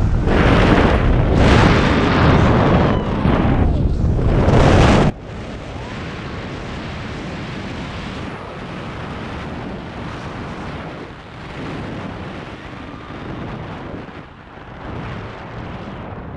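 Wind rushing and buffeting over the camera microphone of a tandem paraglider in a 360 spiral dive. It is loud and rumbling at first, then drops suddenly about five seconds in to a steadier, quieter rush of air.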